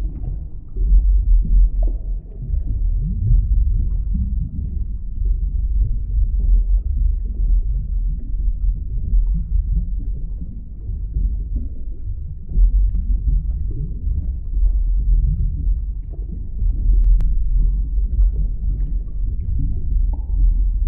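Underwater ambience: a deep, continuous low rumble that swells and eases, with short faint flickers of higher sound over it.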